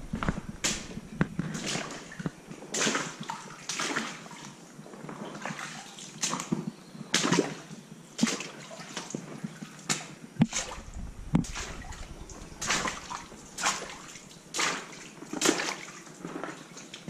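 A hiker's footsteps, roughly one step a second, some steps louder than others.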